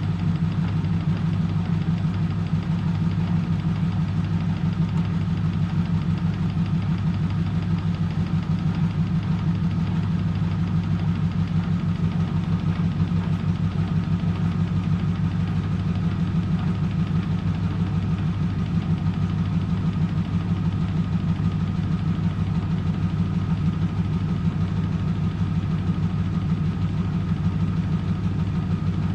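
Eurotech EW 450 front-loading washing machine spinning its drum at 400 rpm: a steady motor hum with a fast, even rumble that does not change.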